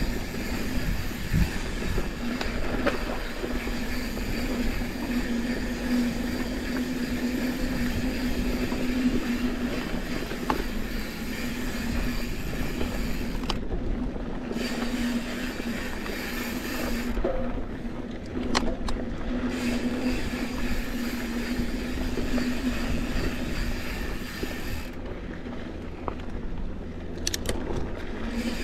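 Santa Cruz 5010 mountain bike rolling along a dry, dusty dirt trail: steady tyre and wind noise with a low hum that drops out a few times, and occasional light clicks and rattles from the bike.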